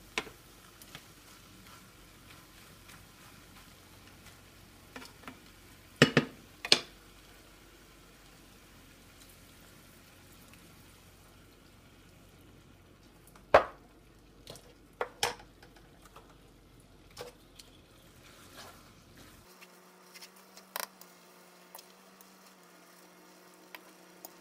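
Stir-frying noodles in a skillet: utensils stirring and tossing with light sizzling, and sharp knocks against the pan, the loudest twice about six seconds in and once just past halfway.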